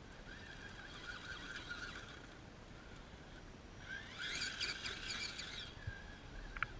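Small electric motor and gear train of an RC rock crawler whining as it drives the truck up a rock slab: a fainter spell for about two seconds, then a louder spell about four seconds in that rises in pitch as it starts. A couple of short clicks near the end.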